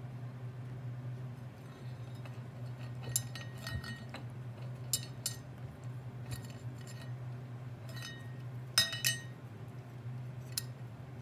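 Small stainless steel food bowl clinking and ringing in short, irregular knocks as a cat eats a raw chicken foot from it, with the loudest cluster of clinks about two-thirds of the way through. A steady low hum runs underneath.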